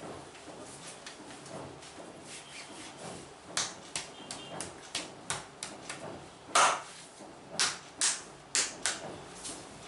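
Hands working over skin in a massage: soft rubbing at first, then, from about three and a half seconds in, a run of sharp, irregular smacks, the loudest about two-thirds of the way through.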